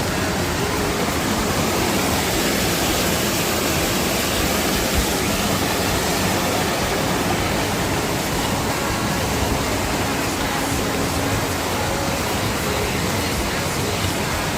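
Mountain valley stream rushing steadily over rocks, an even water noise with no change, and one small click about five seconds in.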